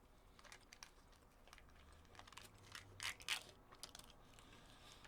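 Faint crinkling and clicking of packaging being handled, with a couple of louder clicks about three seconds in; otherwise near silence.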